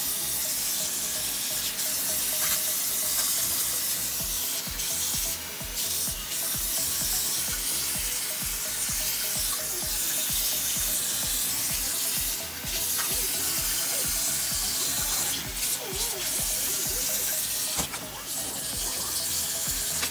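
Kitchen faucet running water into a stainless-steel sink basin, splashing on the steel and draining away.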